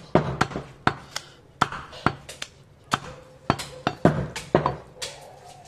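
Heavy butcher's cleaver chopping goat meat on a wooden log chopping block: a dozen or so sharp strikes, irregular, about two to three a second.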